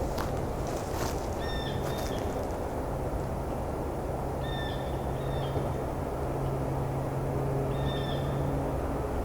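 Red-breasted nuthatch giving short, nasal, tin-horn calls, mostly in pairs, about every three seconds: the quiet contact calls of a nuthatch foraging along branches. A steady low hum runs underneath.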